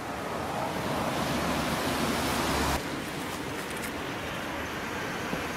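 Steady outdoor background noise, a rushing hiss with no clear single source, cutting abruptly to a slightly quieter background of the same kind about three seconds in.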